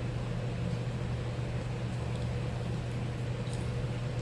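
A steady low mechanical hum, with a few faint wet mouth clicks from chewing chicken wings.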